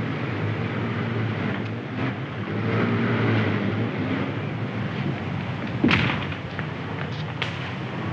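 Low, steady rumble of a car engine and street traffic, with a sharp knock about six seconds in.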